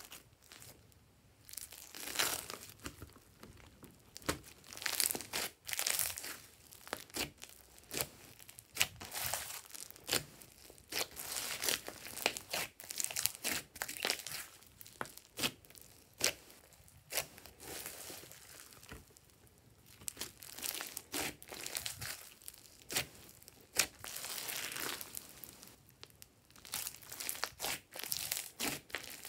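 Hands kneading and squeezing a thick glossy slime full of small foam beads, making dense, irregular crackling and clicking that comes in clusters with brief lulls.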